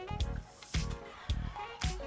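Background music with a steady drum beat, a little under two beats a second, under a melody.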